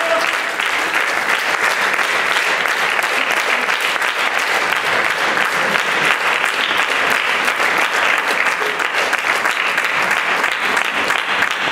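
Theatre audience applauding steadily, a dense crackle of many hands clapping.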